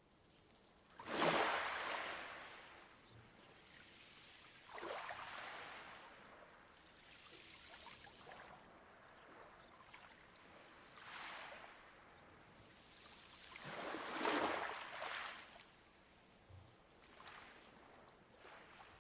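Light waves washing onto a pebble beach. There are about five swells of wash a few seconds apart, each rising and then fading; the loudest comes about a second in and another strong one about three quarters of the way through.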